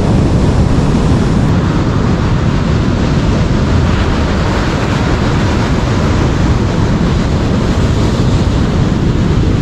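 Rough surf washing and breaking on a beach, with wind rumbling on the microphone: a steady, loud noise without pause.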